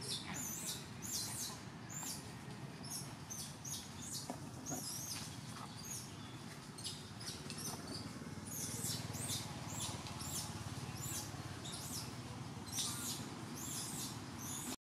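Baby macaque squealing: many short, high-pitched squeals in quick runs of several a second, the cries of an infant demanding to nurse.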